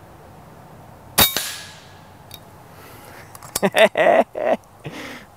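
Integrally suppressed Airforce Condor SS .25-calibre air rifle firing once: a single sharp crack about a second in with a short ringing tail. A few shorter sounds follow a couple of seconds later.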